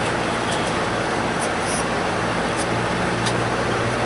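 Steady road and engine noise of a moving car, heard from inside the cabin: an even rush of tyre and wind noise over a low engine hum.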